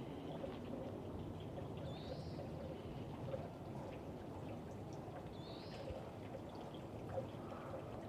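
Steady running water, with a bird giving a short high call twice, about three seconds apart.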